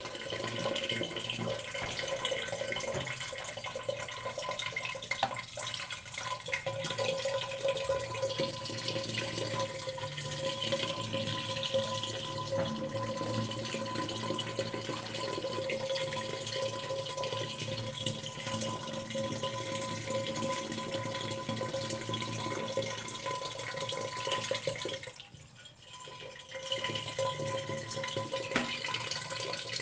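Water flowing and trickling in a hollow surface, with a few steady tones held over the splashing. It briefly dies away about 25 seconds in, then picks up again.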